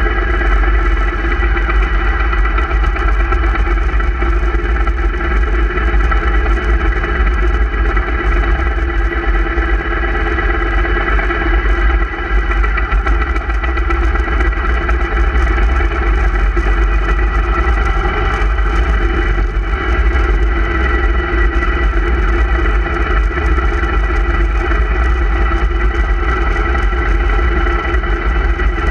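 Motorcycle engine running at a steady cruising speed, with wind rumbling on the microphone of the moving bike.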